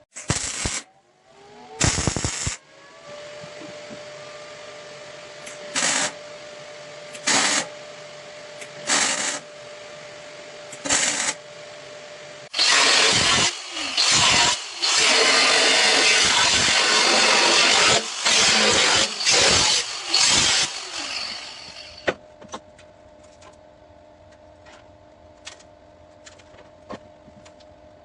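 MIG welding: six short tack welds, each about half a second, then a longer run of welding for about ten seconds with a few short breaks, the arc making a loud steady hiss. A faint steady hum runs underneath.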